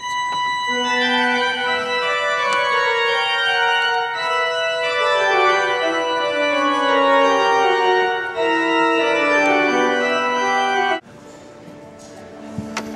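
Church pipe organ playing sustained full chords, the music stepping downward in a descending run, then stopping abruptly about eleven seconds in.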